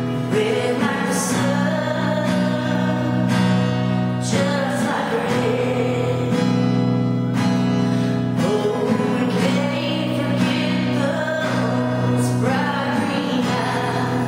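A woman singing with her own strummed acoustic guitar accompaniment.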